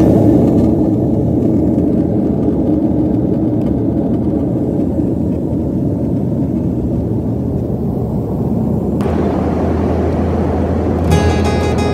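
Loud, steady rush of jet engines and airflow inside an airliner cabin during the climb after takeoff. About nine seconds in the noise turns brighter, and near the end music comes in.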